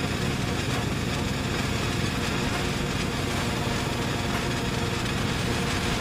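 A steady, harsh, noisy drone with a faint low hum, engine-like, holding one level without rising or falling.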